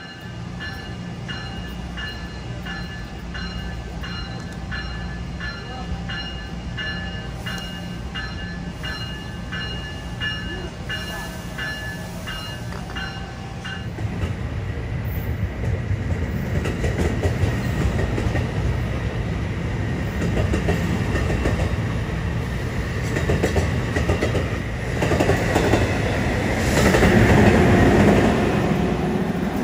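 A bell rings steadily about twice a second, then stops about halfway through. A passenger train then runs past on the Northeast Corridor, its rumble and wheel clatter growing louder and peaking shortly before the end.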